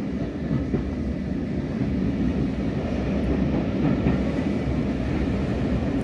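Passenger railway carriage rolling along the track behind a steam locomotive, heard from inside the carriage: a steady low rumble of wheels on rail.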